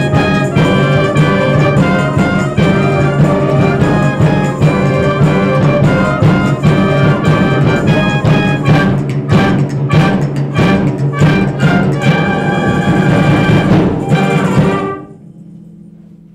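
School concert band of clarinets, tubas and other brass, and drums playing a piece together, with sharp drum strikes about ten seconds in. The band cuts off on a final chord about fifteen seconds in, and the sound fades away over the next second or so.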